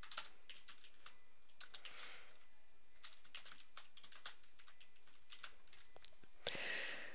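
Faint computer keyboard typing: short, irregular keystroke clicks as a line of code is typed.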